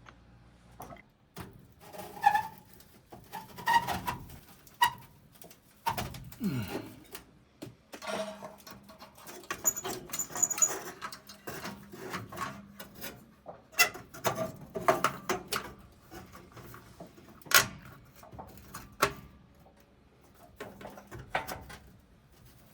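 Intermittent knocks, clicks and clatter from hand work with tools and metal plumbing fittings, with a few short squeaks in between.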